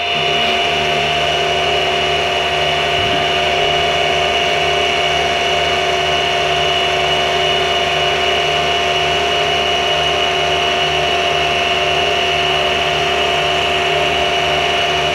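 Mini mill spindle running at about 1500 RPM, with a half-inch three-flute end mill cutting a groove. It makes a steady motor hum with several fixed tones, even in level throughout the pass.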